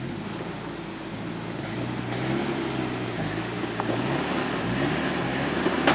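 Off-road vehicle's engine revving unevenly under load as it climbs a rock ledge, pitch rising and falling and growing louder.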